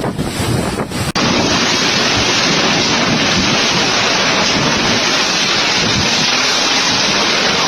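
Storm noise: strong wind and rain buffeting the microphone, loud and steady. There is an abrupt cut about a second in, after which the noise turns denser and even.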